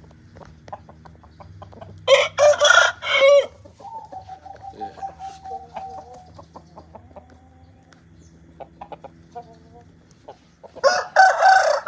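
Young Bangkok game roosters crowing. A loud crow comes about two seconds in and trails into a long drawn-out note, and another crow starts near the end.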